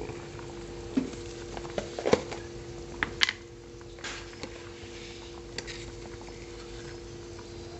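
Pindang fish broth bubbling at a boil in a wok, with a few light clicks and knocks in the first few seconds and a steady low hum underneath.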